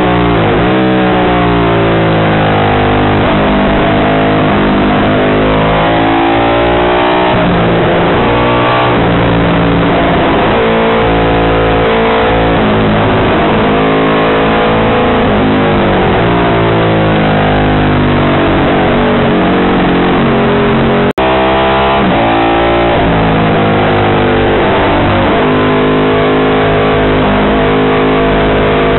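Short-stroke Ducati 750 Imola racer's bevel-drive 90° V-twin at full race pace, the engine note climbing repeatedly through the revs and dropping sharply at each gear change, with falls and blips where it slows for corners. The sound cuts out for an instant about 21 seconds in.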